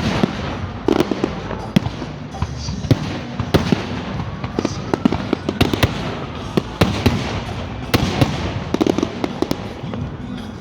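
Aerial fireworks going off in quick, uneven succession: sharp bangs and crackles over a continuous low rumble, with a rising whistle about four seconds in.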